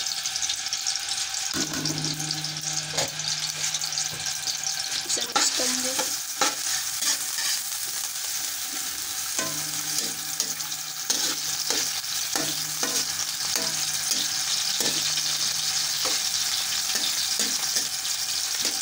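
Sliced red onions sizzling in hot ghee in a steel kadhai, with a slotted steel spatula scraping and clicking against the pan as they are stirred. The clicks come more often from about halfway on.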